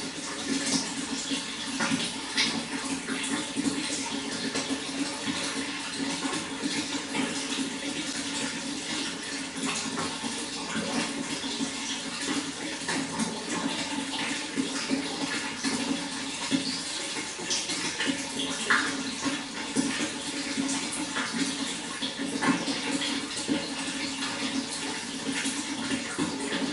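Running water flowing and splashing steadily, with many small irregular splashes.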